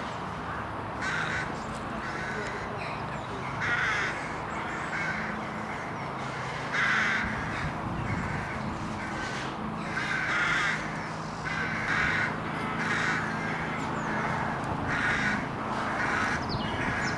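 Crows cawing repeatedly, short harsh calls coming irregularly about every second, over a steady low background rumble.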